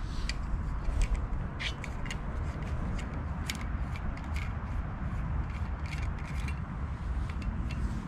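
Scattered sharp clicks and small scrapes from handling a water bottle and its lid, over a steady low rumble.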